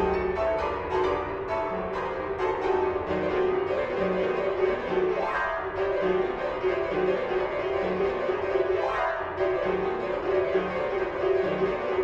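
Instrumental music led by a piano-like keyboard, with a low note repeating roughly once a second under a steady held middle tone and occasional brighter accents.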